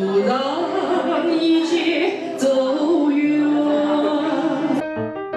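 A woman singing karaoke into a microphone over a backing track, with long held notes. Shortly before the end it cuts abruptly to instrumental music played as separate notes.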